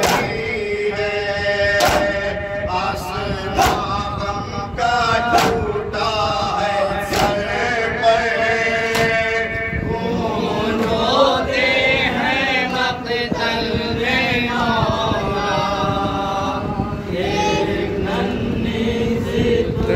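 A group of men chanting a nauha, a Shia Muharram lament, in unison through a microphone, with long held, wavering notes. Sharp chest-beating slaps of matam land about every two seconds, mostly in the first half.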